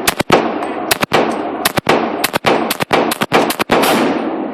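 Handgun shots fired in quick, uneven succession, about fifteen in all, some close together in pairs, each one echoing with a long ringing tail.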